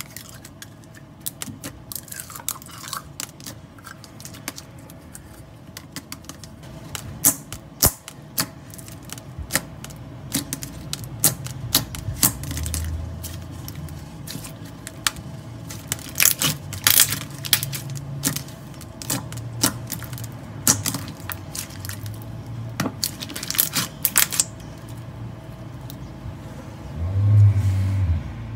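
Stretchy slime being handled, squished, stretched and folded by hand, with dense sharp clicks and pops as air pockets in it burst. Two low thuds as it is pressed down, the louder one near the end.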